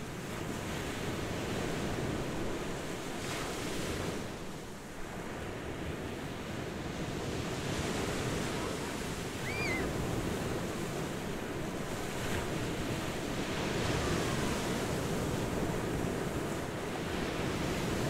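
Ocean surf breaking and washing ashore: a steady rushing wash that swells and eases with the waves.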